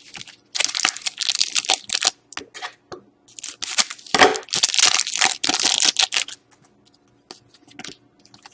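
Foil trading-card pack wrapper crinkling and tearing as it is handled and opened, in two long crackling stretches with a few short rustles in between.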